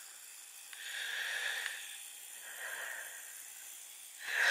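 A person breathing close to the microphone: a couple of soft, hissing breaths, then a loud rushing exhale near the end.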